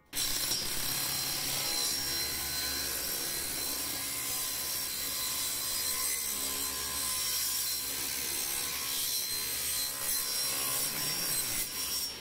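Table saw running and ripping a thin olive wood board, with a steady motor hum under the cutting noise. It drops away near the end as the cut finishes.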